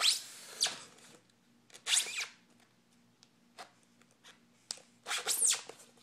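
A dull knife blade scraping through packing tape along the seam of a polystyrene foam shipping box, in three short strokes, each with a falling squeak.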